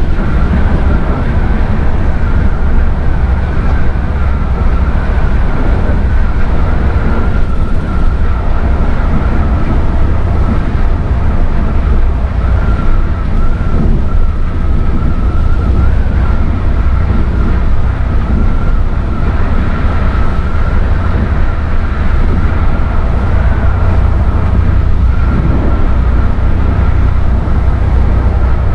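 Volvo B8R bus driving along the highway: a loud, steady low rumble with a thin, high whine held throughout.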